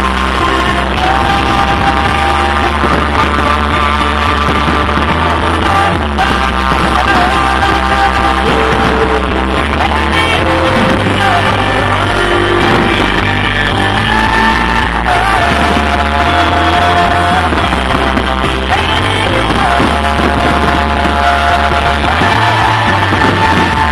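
Music with a singing voice holding a melody over a steady low bass line.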